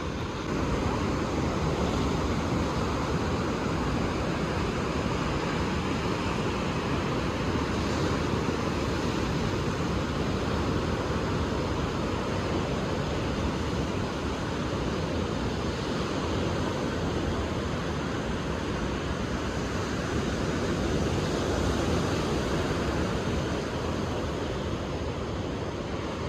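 Ocean surf: a steady wash of breaking waves with gentle swells in loudness, stepping up slightly about a second in.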